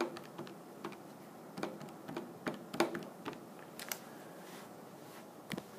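Light, irregular key clicks, about a dozen, as a division is keyed into a calculator.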